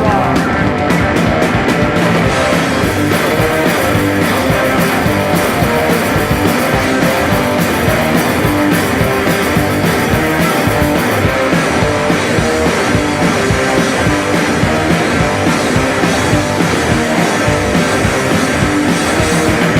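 Punk rock band playing loud, guitar-driven rock, dense and unbroken, with the high end growing brighter about halfway through.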